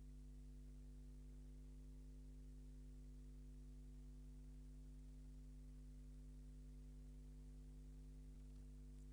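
Steady low electrical hum with a faint even hiss, unchanging throughout; no sound from the scene itself.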